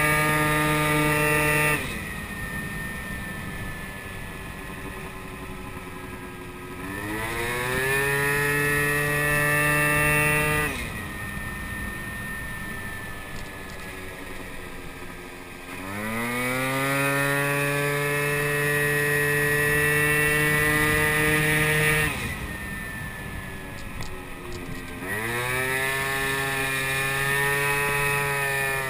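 Small 50cc moped scooter engine heard from the rider's seat, throttled on and off. It runs at a steady high drone, then drops away about two seconds in when the throttle is shut, leaving wind and road noise while coasting. Three times after that it climbs in pitch and holds for several seconds before the throttle is shut again.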